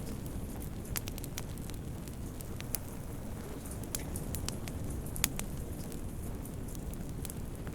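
Wood fire crackling in a fireplace: a steady low rumble of burning with scattered sharp pops and snaps, the loudest about five seconds in.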